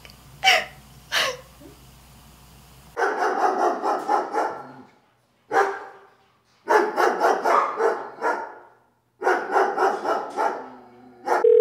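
Small dog barking: two sharp yaps, then runs of rapid yapping in four bursts. A steady single tone like a dial tone starts just before the end.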